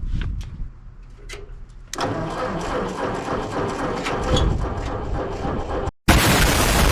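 1949 Ford 8N tractor's four-cylinder flathead engine being cranked by the starter, catching about two seconds in and running rough at a fast idle. It cuts off near the end and is replaced by a loud steady hiss.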